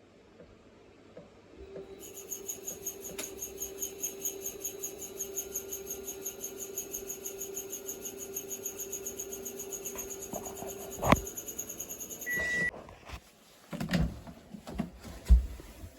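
Panasonic drum-type washing machine turning with a high-pitched squeal that pulses several times a second over a steady hum; the noise comes from a failing drive motor. It stops with a sharp click, followed by a short high beep and a few knocks.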